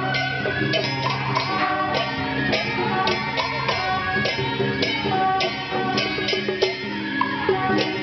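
Temple procession music: sustained melodic tones over a run of frequent, sharp metallic percussion strikes.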